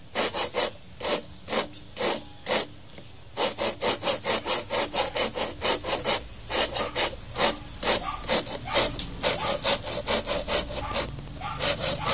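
Engine valve being hand-lapped into its seat with grinding compound: the valve of a Super Kama 12 HP single-cylinder diesel's cylinder head twisted quickly back and forth with pliers. A gritty rasping, about four or five strokes a second, in runs with brief pauses.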